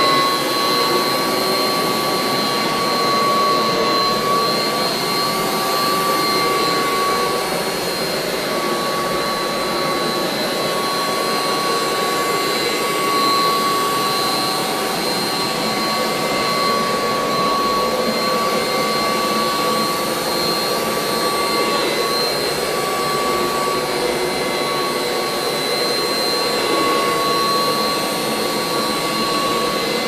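Vintage Kirby Heritage Turbo upright vacuum with a 13-inch cleaner head running while it is pushed over carpet. The motor sounds as a steady rush of air with a constant high whine on top.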